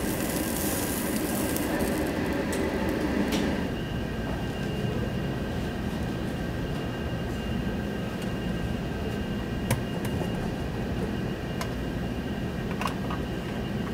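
Pork sizzling on a grill over a steady restaurant background hum; about three and a half seconds in the sizzle falls away, leaving the hum and a couple of light clicks of metal serving utensils on steel trays.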